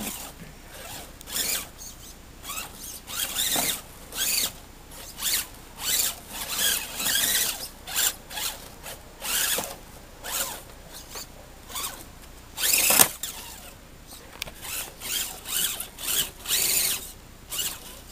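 Axial SCX10 RC rock crawler's electric motor and gear drive whining in short bursts, about one to two a second, as the throttle is blipped to crawl it over loose bricks, with one louder burst about 13 seconds in.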